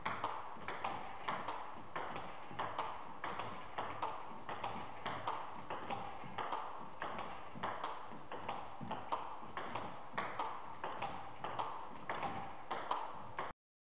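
Table tennis ball clicking in a steady backhand push (backspin) rally, striking the rackets and bouncing on the table at about two clicks a second over a steady hiss. The sound cuts off abruptly near the end.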